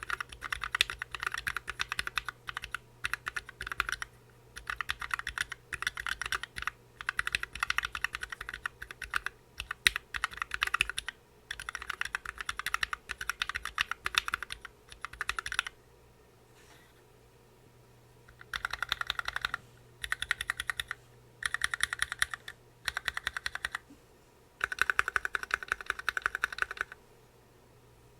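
Rapid typing on a Planck Hi-Pro keyboard fitted with lubed, filmed Gateron N1s switches and PBT keycaps, in bursts of quick keystrokes separated by short pauses, with a longer pause of about three seconds midway.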